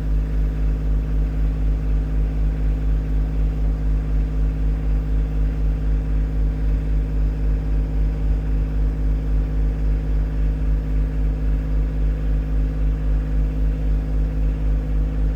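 Tractor engine running steadily, with an even low throb and no change in speed.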